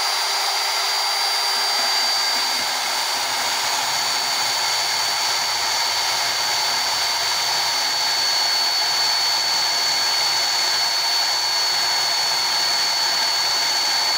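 Vertical band saw running and cutting into a metal tube: a steady hiss of blade on metal with a constant high whine.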